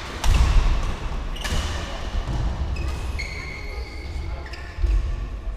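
Badminton hall play: sharp racket hits on shuttlecocks and squeaking shoe soles on the court floor, with heavy low thumps near the start and again near the end.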